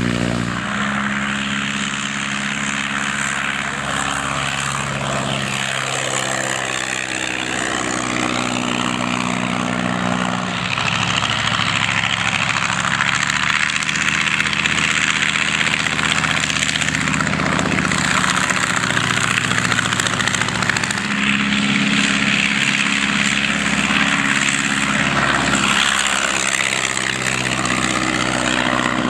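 Vintage biplane piston engines driving propellers as the planes taxi, take off and fly low past. The engine note shifts in pitch several times over a steady propeller drone.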